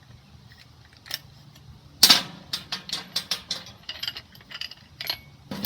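Sharp metal clicks and clinks as the angle grinder's disc and lock nut are handled while the grinding wheel is swapped for a flap disc. A loud click comes about two seconds in, followed by a string of irregular smaller clicks and knocks.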